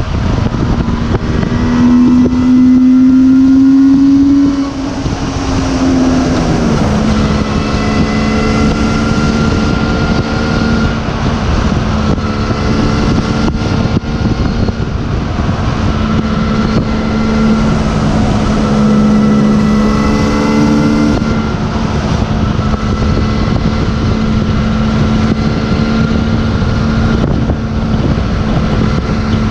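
Suzuki GT750's water-cooled two-stroke three-cylinder engine running under way, heard from the rider's seat with wind noise on the microphone. The engine pitch rises for a couple of seconds near the start, where it is loudest, then drops about six seconds in and holds steady at a cruise.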